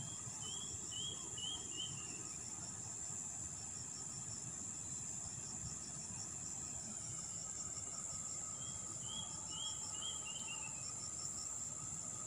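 Insects trilling steadily in one high, unbroken tone, with a faint even pulsing beneath it. Twice, near the start and again about two-thirds through, a quick run of three or four short falling chirps.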